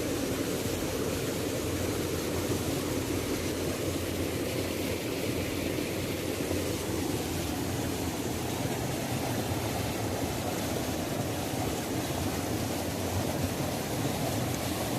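Waterfall: a steady, unbroken rush of falling water with no pauses or distinct events.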